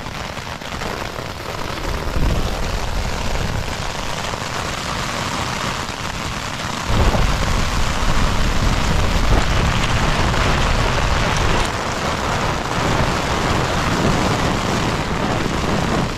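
Gale-force wind and hail battering a backpacking tent, heard from inside: a loud, steady rush. It swells with a heavier, deeper gust about seven seconds in.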